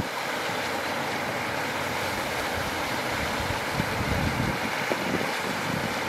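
Steady rush of a small stream cascading over rocks, with wind buffeting the microphone in uneven low rumbles.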